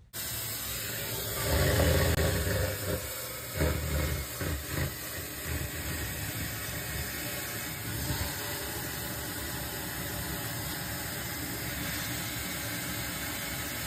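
Water spraying from a hose in a steady hiss, washing down a macerator pump assembly, with louder splashing about two and four seconds in.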